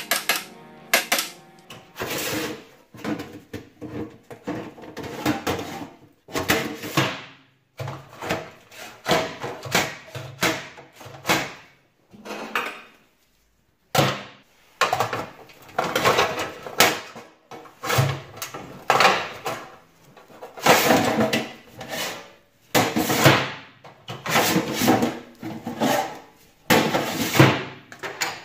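Metal safe-deposit boxes being handled in their steel compartments: irregular bursts of metal scraping, sliding and clattering as the boxes are rummaged and pulled out, with a brief pause about halfway through.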